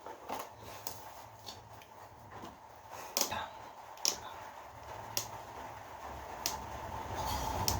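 Irregular sharp clicks and taps, roughly one a second, over a faint steady high hum.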